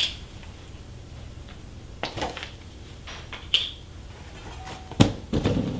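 Plastic hub protectors being worked off a road bike wheel's hub: a few sharp clicks and rattles. About five seconds in there is a knock and a short dull thud as the wheel is set down.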